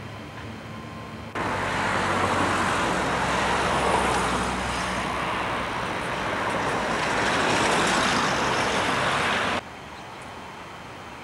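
Street traffic: the even noise of cars passing on the road, starting abruptly about a second in, swelling twice and cutting off suddenly near the end.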